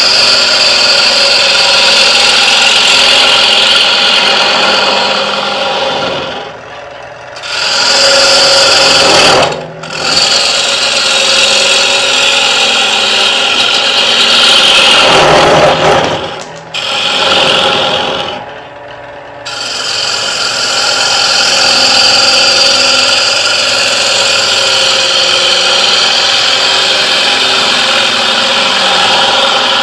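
3/8" bowl gouge cutting into the inside of a wooden bowl blank spinning on a lathe: a loud, steady hiss of shavings peeling off, hollowing the bowl with the three-part bowl cut. It comes in several long passes with four short breaks where the tool comes off the wood, about 7, 10, 16 and 19 seconds in.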